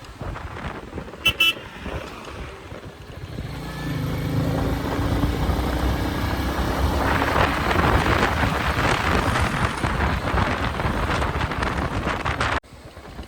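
Royal Enfield Meteor 350's single-cylinder engine and exhaust running under way at road speed, with a vehicle horn tooting twice briefly about a second in. From about halfway, rushing wind noise grows loud over the engine, and the sound drops away abruptly near the end.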